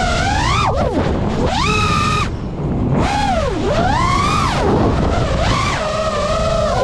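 FPV racing quadcopter's brushless motors whining, the pitch sweeping up and down as the throttle changes through a dive, over a steady rush of air noise. A little over two seconds in the whine drops away for under a second, then comes back climbing as the throttle is opened again.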